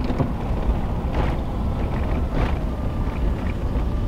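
Pickup truck driving on a rough dirt road, heard from inside the cab: a steady low rumble of engine and tyres, with brief rattles about a second in and again about two and a half seconds in.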